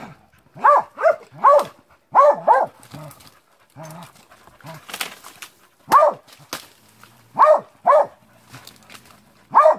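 Hunting dog barking at a wild boar it is holding at bay, in quick runs of two or three barks with a quieter gap of a few seconds in the middle.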